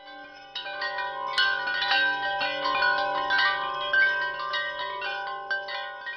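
Tinkling wind chimes: many bright metal tones struck in quick, irregular succession, each ringing on, fading near the end.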